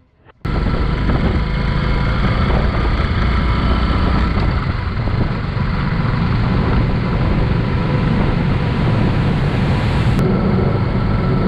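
Wind buffeting the microphone over a motorcycle running at riding speed: a loud, steady rush that starts abruptly about half a second in.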